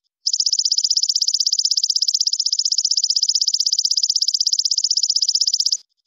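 Belalang kecek, a singing grasshopper-like insect, calling in one loud, high-pitched, rapidly pulsed trill of about a dozen even pulses a second. It starts just after the beginning, holds steady for about five and a half seconds, and cuts off abruptly.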